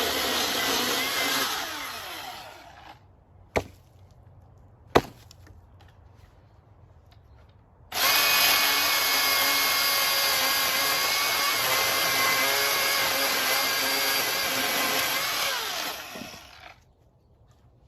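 Milwaukee M18 FUEL 16-inch battery chainsaw's brushless motor and chain running at a steady pitch, then winding down as the trigger is released. Two sharp clicks come in the pause. The saw then starts abruptly about eight seconds in, runs steadily and winds down again near the end.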